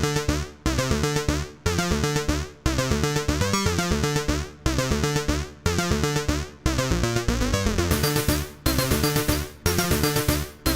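Electronic intro music: a fast synthesizer pattern over a steady beat, in phrases that restart about once a second.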